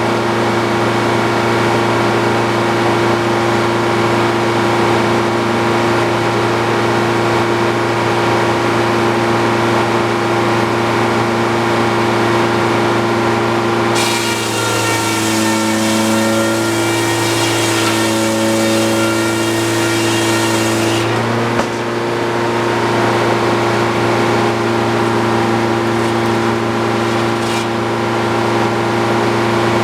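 Engine-driven Frick circular sawmill running steadily; about halfway through the blade cuts through a log for some seven seconds, adding a loud hiss of sawing while the engine's pitch pulls down and wavers under the load, then it runs free again.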